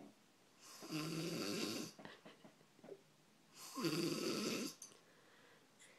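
Someone asleep snoring: two long snores about three seconds apart, each lasting about a second.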